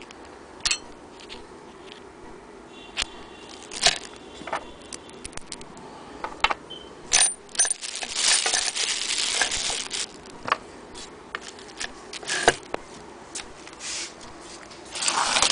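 Small metal parts clinking and knocking on a wooden base, with one ringing clink about three seconds in. A plastic bag crinkles for a couple of seconds around the middle.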